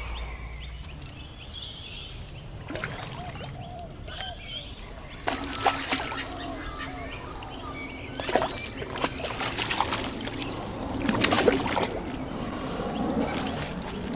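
A small hooked fish splashing several times at the water's surface as it is played in and landed, in sharp bursts through the middle and latter part. Birds call and ducks quack lightly in the background.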